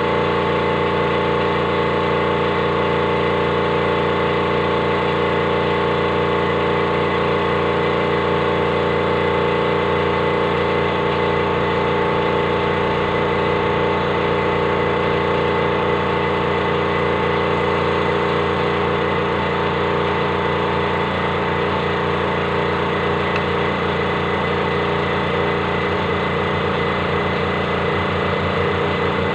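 Motorcycle engine idling steadily at an even, unchanging speed.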